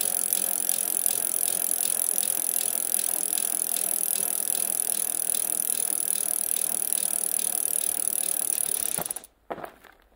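A steady, dense rattling noise with a hiss, made of fast fine ticks, that cuts off suddenly about nine seconds in, leaving a few faint clicks.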